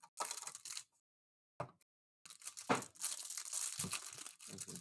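Trading card pack wrapper being torn open and crinkled: a short crackly burst near the start, then a longer run of crinkling and tearing through the second half.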